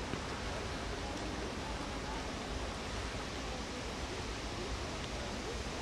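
Steady, even rushing noise of wind on the microphone, unchanging throughout.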